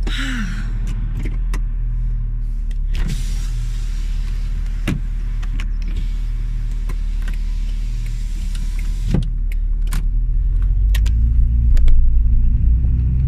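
Car engine idling, heard from inside the cabin, with scattered clicks and knocks. Near the end the engine gets louder and its note rises.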